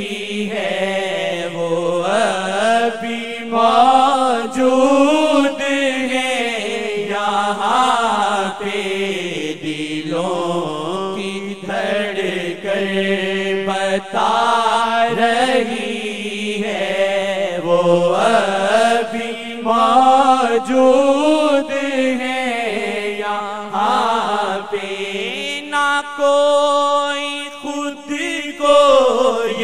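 A naat sung without instruments, the voice chanting long drawn-out phrases that rise and fall in pitch. Near the end it holds one long steady note.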